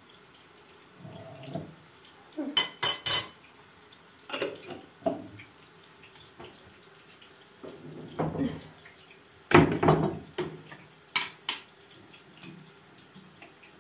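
A metal spoon clinking and scraping against glass jars and a small glass dish as pickles are dished out, with glass jars knocked and set down on the counter. Irregular sharp clinks and clatters: three quick loud ones about three seconds in, and the loudest clatter about ten seconds in.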